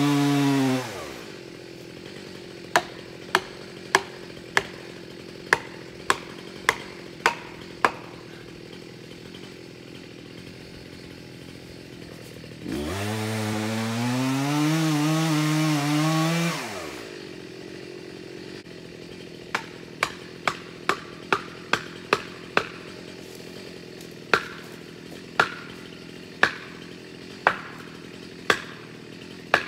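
Stihl chainsaw at full revs dropping to idle about a second in, revving up again for about four seconds near the middle, and idling steadily in between. Two runs of sharp knocks, the first about nine in a row at under two a second, the second slowing toward the end: blows driving felling wedges into the cut of a large hemlock.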